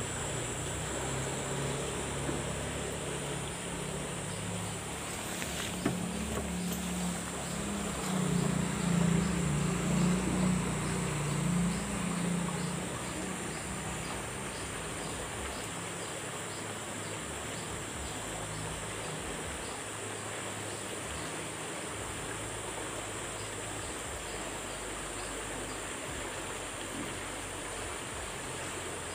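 Steady high insect chirring over an even hiss from flowing channel water. A low engine hum swells and fades about a third of the way in.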